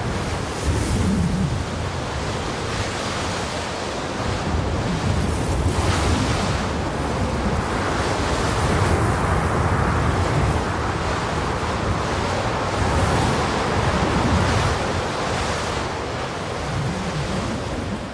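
A horror sound effect of continuous rushing noise over a deep rumble, swelling and easing like wind or surging surf, beginning to fade near the end.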